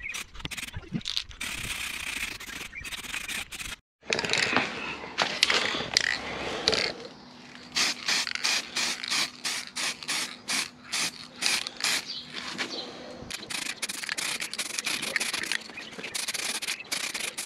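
Aerosol spray paint can hissing as gloss black paint is sprayed onto plastic fog light surrounds, first in a longer pass and then in many short bursts, about two to three a second.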